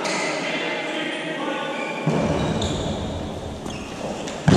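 Players' voices echoing around a sports hall, with dodgeballs thudding on the floor; a sharper knock comes near the end and the noise jumps up just before it closes.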